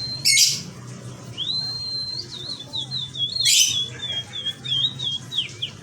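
Domestic canary singing: a high held whistle and a run of quick repeated whistled notes, about five a second, broken twice by short loud harsh bursts. A low steady hum sits underneath.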